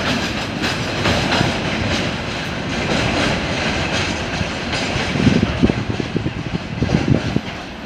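Freight train wagons rolling past, their wheels clacking over rail joints, with a cluster of louder knocks about five to seven seconds in.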